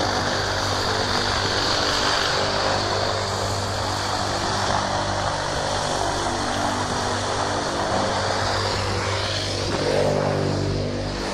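Antonov An-22's four turboprop engines with contra-rotating propellers running loud during its landing roll on a dirt strip. A steady drone of propeller tones sits under a heavy rushing noise, and the sound shifts near the end as the dust cloud reaches the microphone.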